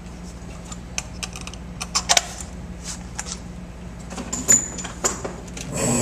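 Light clicks and clinks of metal tools being handled and set down. Near the end the PTS8 crimping press's hydraulic pump motor starts up with a steady hum.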